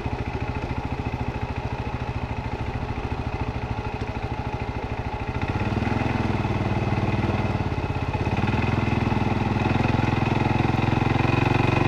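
ATV engine running at low revs with a steady putting beat, then picking up revs and getting louder about halfway through, and louder again a little later as it pulls up the rocky climb.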